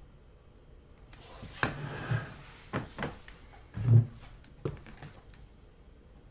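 Handling noise: a rustle or scrape about a second in, then several separate knocks and thumps, the loudest a dull thump about four seconds in.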